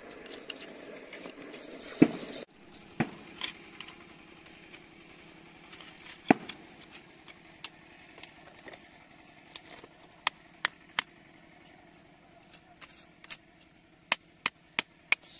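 Water splashing and trickling over wet gravel, stopping abruptly about two and a half seconds in, then a thin stick prodding stones in the wet grit with scattered sharp clicks. Near the end come quick, evenly spaced clicks, about three a second.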